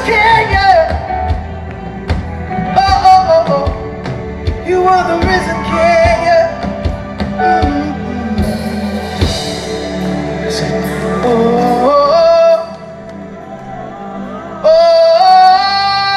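Live gospel worship music: sung vocals over a band with a steady drum beat. About twelve seconds in, the drums drop out and the music softens, then a long note is held near the end.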